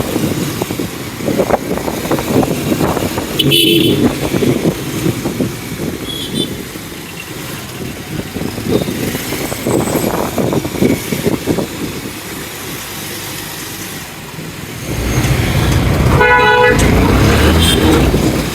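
Road traffic with vehicle horns honking: a short horn about three and a half seconds in and a louder horn around sixteen to seventeen seconds, over engine noise that grows louder about fifteen seconds in.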